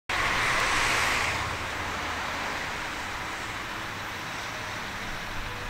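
Road traffic noise, louder for the first second and a half, then a steady hiss and hum.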